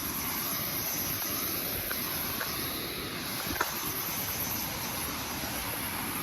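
Steady rushing of a waterfall, with a constant high-pitched buzz over it and one brief click a little after halfway.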